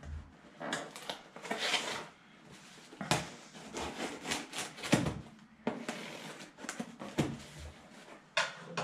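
A knife slitting the packing tape along the seam of a cardboard box, with irregular scraping and knocks on the cardboard.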